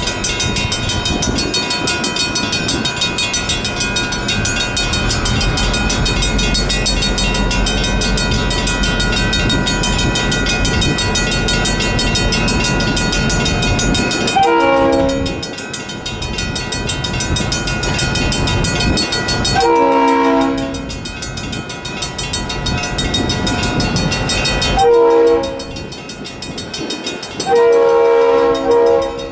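A Federal Signal mechanical railroad crossing bell ringing rapidly and steadily, with a train rumbling through in the first half. Later a locomotive horn sounds four blasts of about a second each over the bell.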